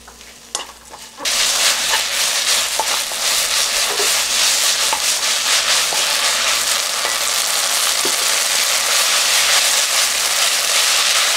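Seasoned kelp strips and green chilies sizzling in a frying pan while being stirred and tossed with a wooden spatula, with a dense, steady hiss. The sizzling starts suddenly about a second in.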